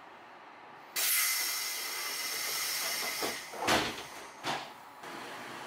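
Air-operated folding door of a 12-series passenger coach closing: a sudden hiss of compressed air about a second in, lasting about two seconds, then three knocks as the door leaves fold shut.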